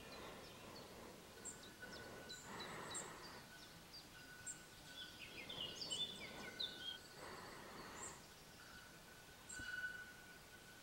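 Faint outdoor ambience of small birds chirping in short high notes and brief trills, with a thin steady high tone that comes and goes. Soft swells of hiss come three times.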